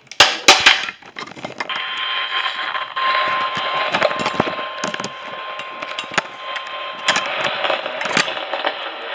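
Radio receiver static: a steady band-limited hiss with scattered crackling clicks, and a faint steady tone underneath that stops about seven seconds in. A few sharp clicks come in the first second, before the hiss starts.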